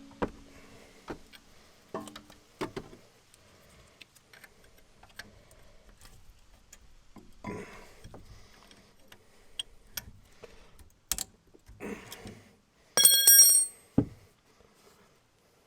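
Hand tools working on the brake caliper and its bolts: scattered sharp metallic clicks and knocks, with one loud ringing metal clink about 13 seconds in.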